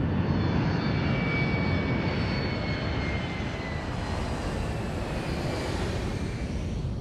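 An aircraft passing with a steady engine roar and a high whine that slowly falls in pitch.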